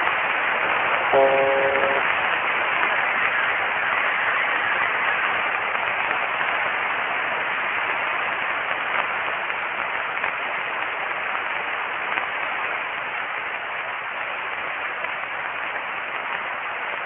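Steady hiss of HF band noise from the HamSphere 5 virtual transceiver app's receiver, with a short buzzy tone about a second in.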